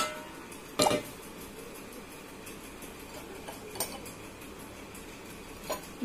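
Stainless steel utensils clinking against each other and the dishwasher's wire rack as they are handled. One sharp clink comes about a second in, then two faint ones later.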